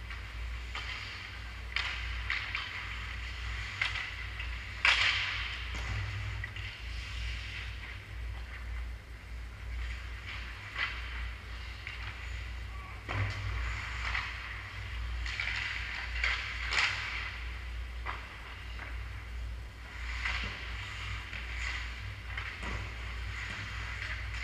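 Ice hockey being played in an indoor rink: skate blades scraping the ice and scattered sharp clacks of sticks and puck, the loudest about five seconds in, over a steady low hum.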